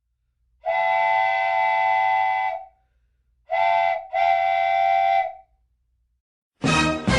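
A whistle sounding a chord of several steady notes, blown three times: one long blast, then a short one and a longer one. Music cuts in near the end.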